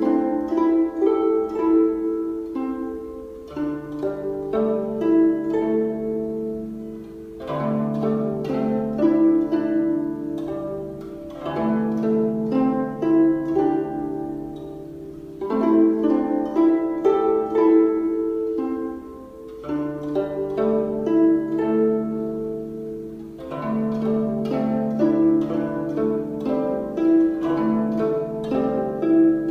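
Calm instrumental music: a stream of plucked, harp-like notes over held low notes that change about every four seconds.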